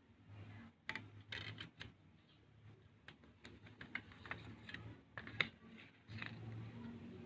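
A CD album and its case and booklet being handled: irregular light plastic clicks and paper rustling, with one sharper click about five seconds in.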